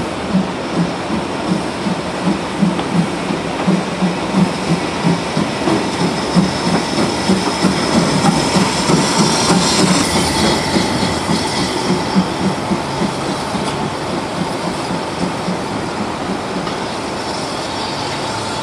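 BR Ivatt Class 2 2-6-0 steam locomotive No. 46521, a two-cylinder engine, running slowly under steam. Its exhaust beats and wheel clicks come about twice a second, and a high-pitched hiss or squeal is strongest around the middle.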